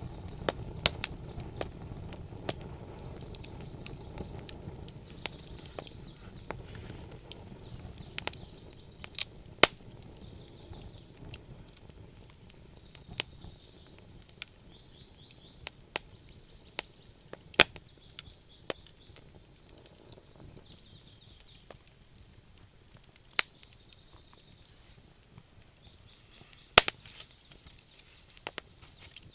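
Wood fire burning in a fireplace: irregular sharp crackles and pops with a few much louder snaps, over a low rumble of the flames that fades during the first ten seconds or so.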